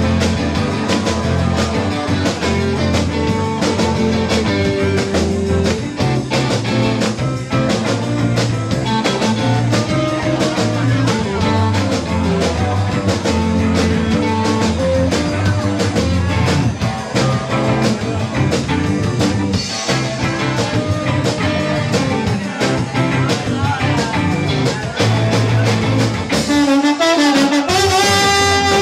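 Live sixties-style rock and roll band playing, with electric guitars and a bass line over a steady beat. Near the end a slide trombone plays a rising glide.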